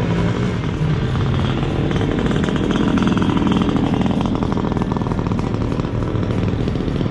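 A small vehicle engine running close by. Its rapid, even firing is steady and grows strongest around the middle.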